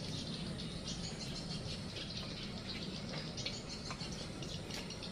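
Quiet steady hiss from a lit portable gas stove's burner and the surroundings, with faint scattered chirps and ticks, while cooking oil is poured in a thin stream into the pan.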